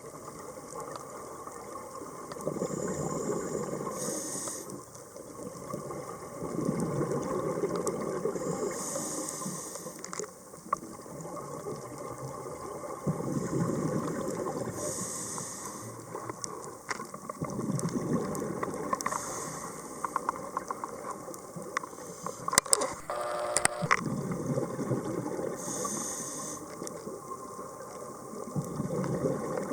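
A scuba diver breathing through a regulator underwater. Each breath is a high hiss followed by a low bubbling rush of exhaled bubbles, about every five or six seconds, with scattered clicks and a short buzzing tone about three-quarters of the way through.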